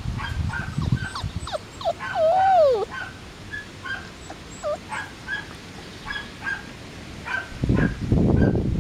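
Samoyed puppies yipping and whimpering in short repeated high yelps, with one longer whine that rises and then falls in pitch about two seconds in. A rustling rumble comes in near the end.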